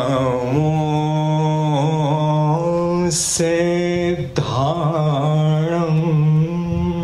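A man chanting a mantra solo into a microphone, unaccompanied, in long held notes with slow turns of pitch, broken by a brief hiss about three seconds in.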